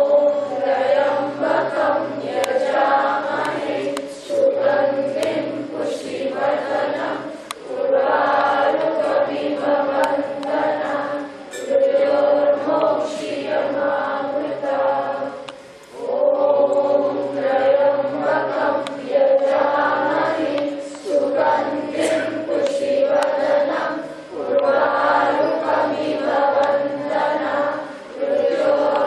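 A group of voices chanting a Hindu mantra in unison on one held pitch, in phrases of about four seconds separated by short breaks.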